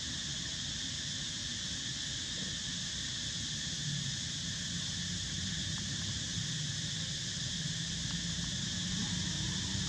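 Steady outdoor drone of insects, a continuous high-pitched buzzing, over a low rumble.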